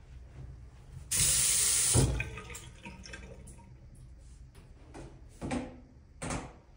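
Bathroom sink faucet turned on briefly: water runs into the basin for about a second, then stops with a low knock. Two short, quieter noises follow near the end.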